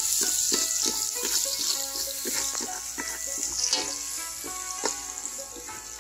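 Chopped garlic sizzling in hot oil in an aluminium pot, stirred with a metal ladle. The sizzle is loudest at first and eases after about three and a half seconds. Background music plays under it.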